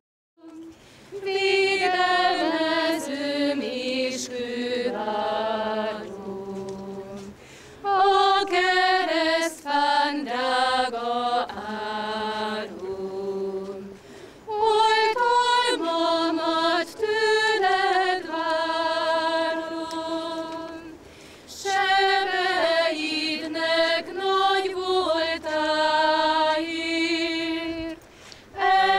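A small group of women singing a song unaccompanied, in long phrases of held notes with a short pause about every seven seconds.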